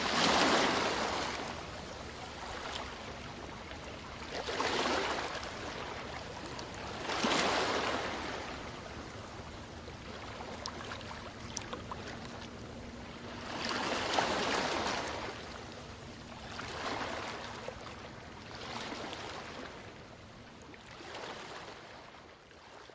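Small waves washing onto a sandy beach, with a surge of surf every two to three seconds. The surf fades out near the end.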